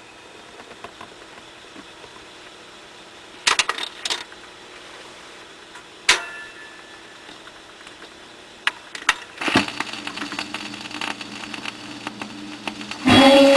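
A 1953 Zenith Cobra-Matic AM radio tuned between stations: low hiss with several sharp clicks and crackles of static and faint snatches of signal. A station's music comes in loud near the end.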